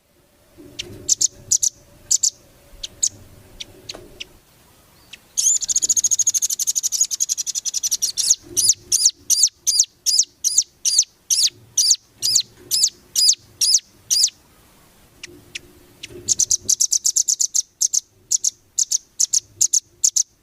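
Velvet-fronted nuthatch (rambatan) song in fast, high notes. There are scattered short calls, then a rapid 'beset' trill about five seconds in, then a run of sharp repeated notes at about three a second, and another trill near the end.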